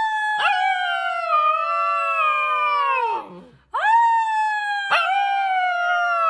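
Husky-type puppy howling: two long, high howls that sink slowly in pitch and drop away at the end. Each has a brief catch shortly after it starts. The first dies out about three seconds in and the second begins about half a second later.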